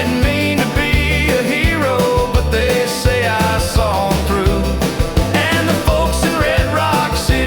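Instrumental break of a 1950s-style Western swing song: a twangy guitar melody over upright bass and brushed drums, in a steady swinging rhythm.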